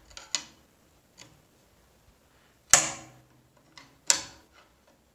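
Sharp metal knocks and clicks from an aluminium mitre bar being pushed into a table saw's mitre slot, where it binds because it is slightly too wide to slide in. There are five knocks, two of them loud: the loudest about three seconds in, the next about a second later.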